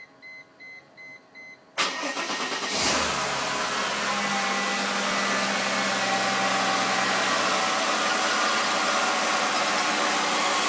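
A few short electronic beeps, then an electric fan starts up about two seconds in and runs steadily with a motor hum and rushing air. The fan's bearing is worn and squeaky, on its way out.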